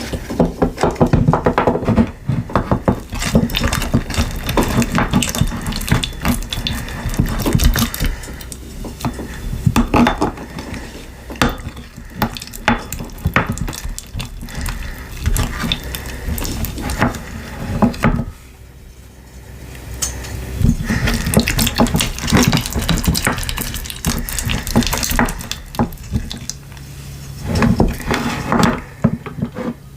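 Slime or thinking putty being squished and worked by hand, giving dense runs of sticky, wet crackles and pops, with a brief lull about two-thirds of the way through.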